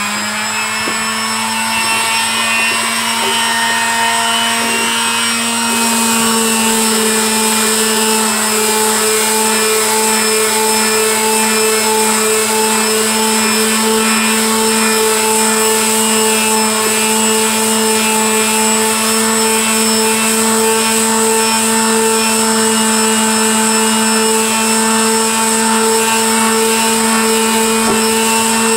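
Makita electric palm sander running steadily with a high, even motor hum, its pad pressed on wooden stair treads and sanding off the old finish.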